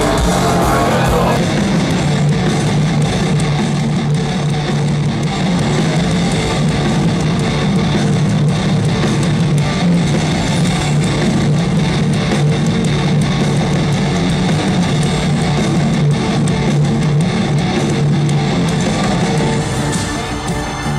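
Live heavy metal music: a band's electric guitar playing loudly and steadily over bass, with no vocals.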